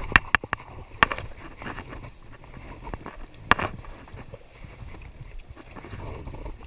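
A handful of sharp wet slaps and knocks as freshly caught small fish flap on a fishing net and are picked out of the mesh by hand: a quick cluster at the start, another about a second in and a louder one about three and a half seconds in, over a steady low rumble.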